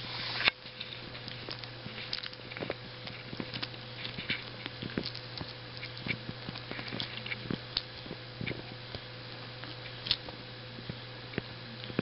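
Two kittens play-wrestling on bedding: soft scratching and rustling of paws and claws on fabric, with scattered small clicks and taps, the sharpest about half a second in.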